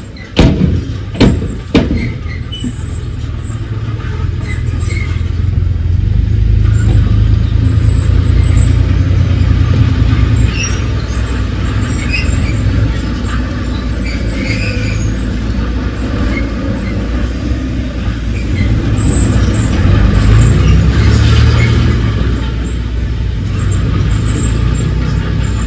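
Heavy diesel engine of earthmoving machinery running under load, with a low steady drone that swells louder twice. A few sharp metallic knocks sound in the first two seconds.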